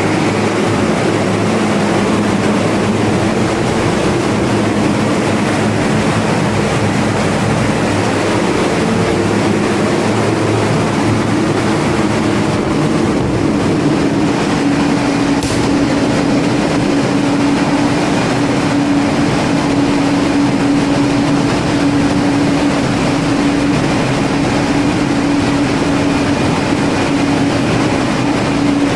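Loud, steady engine-room machinery noise aboard an LNG carrier with dual-fuel diesel-electric propulsion: a dense hum with steady droning tones, which shift to one higher steady tone about halfway through.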